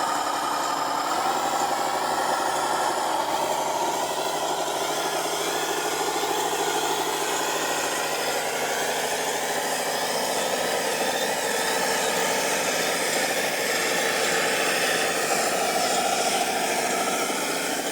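Radio-controlled model logging truck running steadily, a continuous motor hum with slight rises and falls in pitch.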